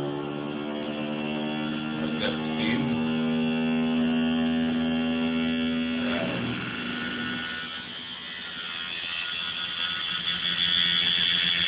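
Small hobby DC electric motor spinning a paint-stick disc propeller, a steady hum with a buzzing edge. About six seconds in the tone changes and briefly drops in level, then a higher whine builds near the end, with a couple of faint knocks about two seconds in.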